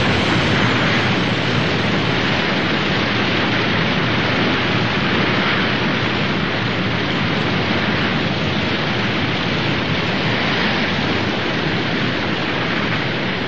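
Steady rushing of falling water, an even, unbroken roar.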